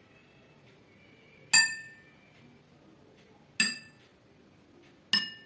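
Drinking glasses partly filled with water struck three times, about two seconds apart, each strike giving a clear ringing clink that dies away within about half a second.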